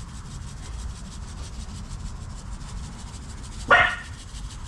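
Kosher salt shaken from a shaker onto a rack of raw baby back ribs, a light steady rasp over a low rumble. About three-quarters of the way through, a dog barks once, sharp and short, the loudest sound here.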